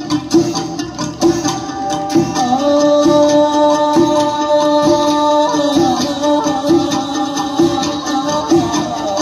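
Vietnamese folk music with a steady drum beat and plucked strings, and one long held note from about two and a half to five and a half seconds in.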